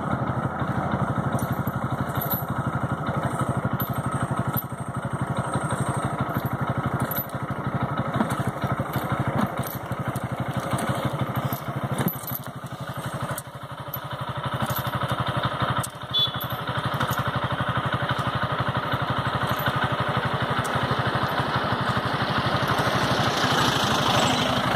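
A small motorcycle engine running steadily close by, its fast, even firing pulse continuous throughout, with road noise over it.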